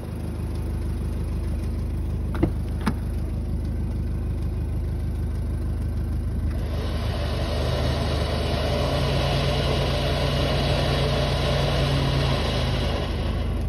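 Ute engine idling steadily, with two sharp clicks about two and a half and three seconds in. From about six and a half seconds a louder steady mechanical whirring with a low hum joins it and eases off near the end.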